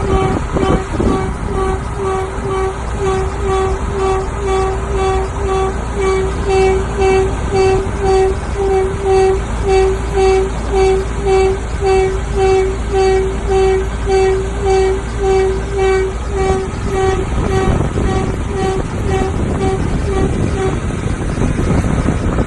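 A pitched tone pulsing about twice a second, over a steady low rumble. The rumble drops away about two thirds of the way through, and the pulses fade out near the end.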